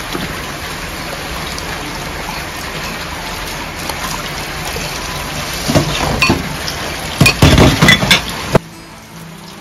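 Tap water running and splashing into a stainless steel sink while dishes are washed. Glassware and crockery clink against each other several times in the second half. The water sound drops away suddenly near the end.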